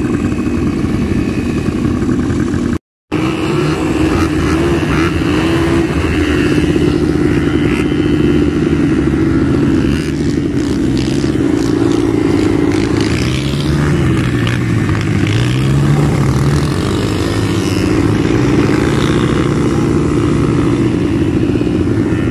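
ATV (quad bike) engines running close by, revving up and down with rising and falling pitch around the middle. The sound drops out for a moment about three seconds in.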